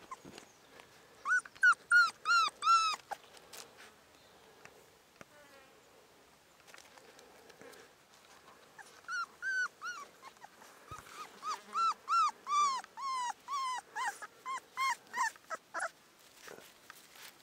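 Cane Corso puppy about a month old whining in short, high-pitched cries. There is a run of about six cries about a second in, then a longer string of about twenty from about nine seconds in.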